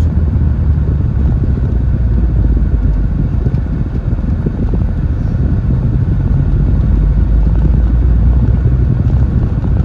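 An MG TF's four-cylinder engine running under way, with road and wind noise, heard as a steady low rumble that grows a little louder about seven seconds in.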